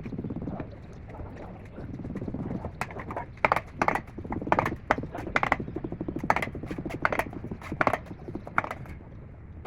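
A run of sharp knocks or taps, irregular at about one to two a second, over a steady low rumbling background.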